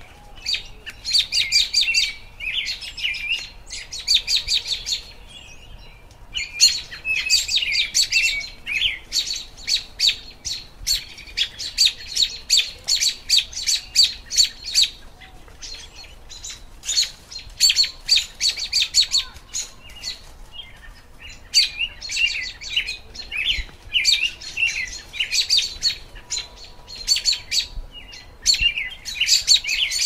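American robin singing: runs of quick, clear chirping notes in bursts of a few seconds, broken by short pauses.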